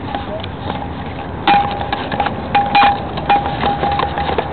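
Irregular metallic clinks with a short ringing tone, starting about a mid-way through and repeating unevenly, over steady outdoor background noise.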